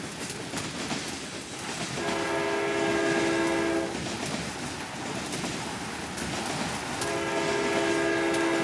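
Train passing close by, its wheels on the rails making a continuous rumble. The train horn sounds two long blasts of several notes at once, each about two seconds long: one about two seconds in, the other near the end.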